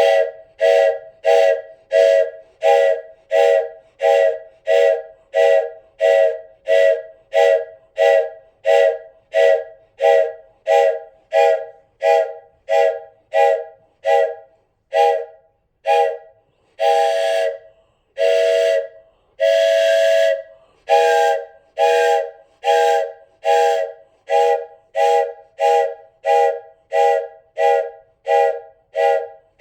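Wooden multi-chamber train whistle blown in short, even toots, about one and a half a second, each sounding a chord of several steady tones. Two longer held blasts break the rhythm about two-thirds of the way through, then the short toots resume.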